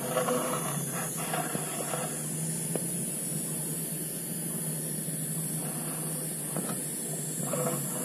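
Steady high-pitched drone of insects in the pine trees, with a few short mid-pitched calls in the first two seconds and again near the end.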